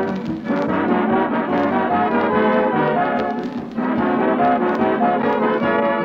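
Radio studio dance orchestra playing a lively instrumental with brass to the fore, the program's opening number.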